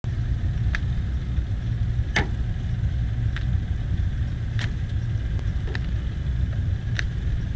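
Boat engine idling with a steady low rumble, with a few short, faint high ticks scattered over it.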